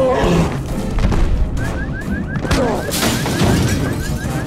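Heavy crashes and booms of a film action mix, over orchestral score. About a second and a half in, a car alarm starts, chirping rapidly in short rising whoops, about five a second.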